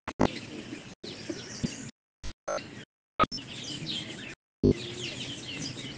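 Birds chirping in the background: many quick high chirps, cut off now and then by short gaps of dead silence.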